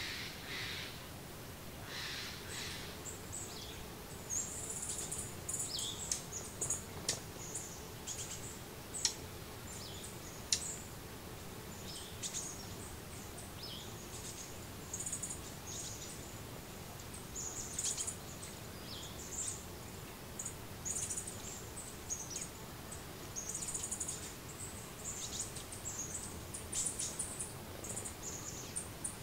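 Small birds chirping: many short high-pitched chirps and calls scattered throughout, some in quick runs, over a steady low background hiss.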